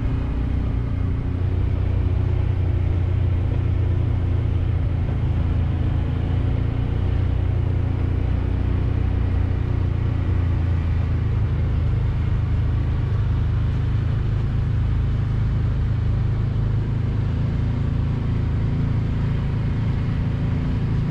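Side-by-side UTV driving along a dirt track, heard from the driver's seat: the engine runs at a steady pace, a constant sound that is mostly low in pitch, with no change in speed.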